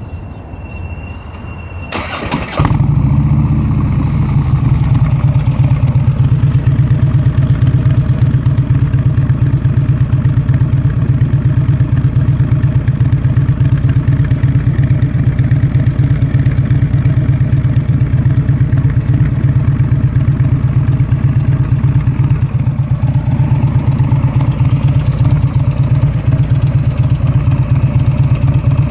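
Harley-Davidson Road Glide V-twin with a Cobra Center Pro exhaust starting: the starter cranks briefly about two seconds in, the engine catches and settles into a loud, steady idle.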